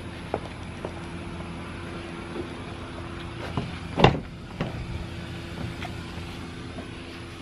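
Steady hum of an idling car engine, with a sharp knock about four seconds in.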